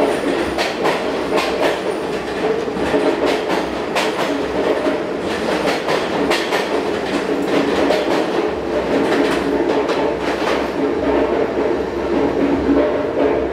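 R46 New York subway train pulling out along the platform: a steady running rumble with irregular clicks of the wheels over rail joints. The clicks thin out over the last few seconds as the last car leaves.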